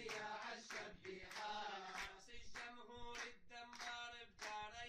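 A group of men singing together while clapping their hands in rhythm.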